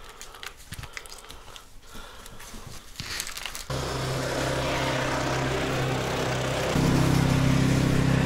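A plastic pouch of wet dog food crinkling as it is squeezed out by hand. About three and a half seconds in, a steady engine hum starts abruptly and gets louder about three seconds later.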